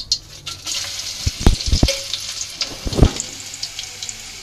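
Crushed garlic and dried red chillies sizzling as they fry in hot oil with popped mustard seeds in a metal kadai, the tempering for a keerai kootu. The sizzle starts about a second in, strongest at first, with a few knocks against the pan about a second and a half and three seconds in.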